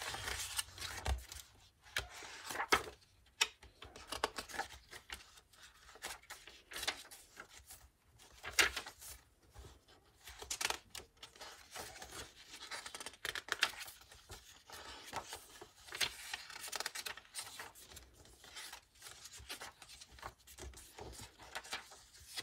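Paper and card pages of a handmade junk journal being turned and handled: irregular rustles and flaps, the loudest about nine seconds in.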